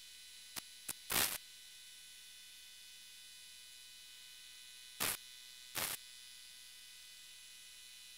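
Steady hiss and hum with several thin high-pitched whine tones, broken by two faint clicks and a louder short burst of noise around a second in, and two more short noise bursts about five and six seconds in.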